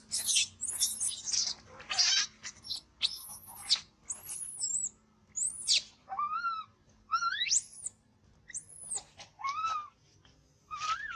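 Baby long-tailed macaque screaming and crying. A quick run of shrill screams comes in the first few seconds, then separate wavering, rising squeals, the distress cries of an infant pinned down under its mother.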